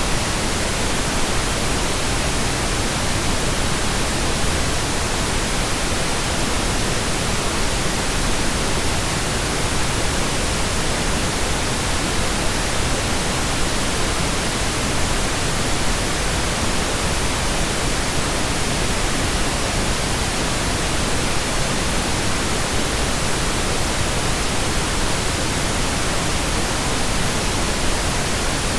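Steady, computer-generated pink noise: an even, unchanging hiss spread across all pitches.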